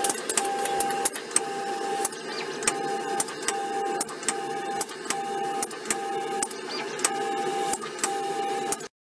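Automated selective spray coater running: a steady mechanical hum and hiss with a short whine repeating about every 0.8 s as the gantry steps the spray gun, and scattered sharp clicks. The sound cuts off suddenly near the end.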